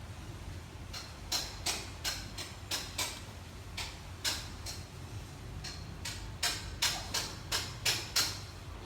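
A quick, irregular series of sharp metal clicks and taps, about two to three a second, from the hardware of a military pistol belt being handled.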